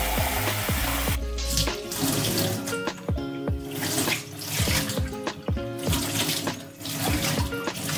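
Water running from a tap while hands are washed, loudest in the first second or so, over background music with a beat.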